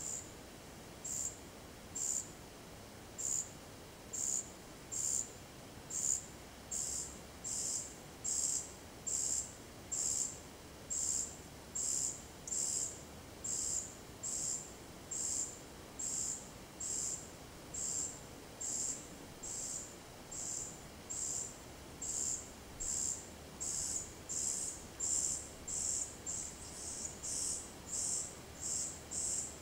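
Juvenile common cuckoo begging for food: a high, thin call repeated about once a second, quickening to about two a second in the later part.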